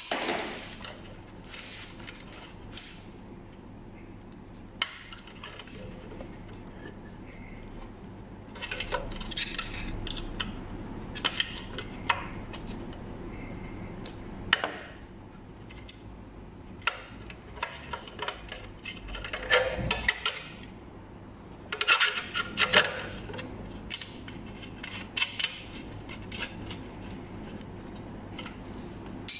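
Scattered sharp clicks, scrapes and light metallic taps of a small screwdriver tip prying at the plastic electrical connector on a car horn, with a few short bursts of rattling handling.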